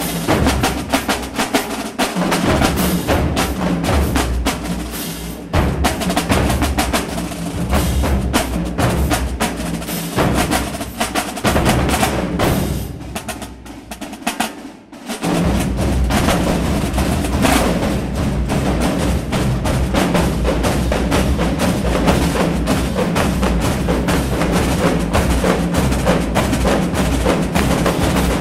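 Marching drumline of snare drums, bass drums and crash cymbals playing a loud, fast cadence. It drops to quieter, thinner playing for a couple of seconds about halfway through, then comes back in full.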